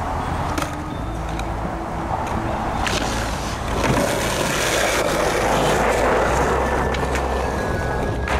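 Skateboard wheels rolling on concrete and a ramp, with a few sharp clacks of the board hitting. The rolling gets louder around the middle.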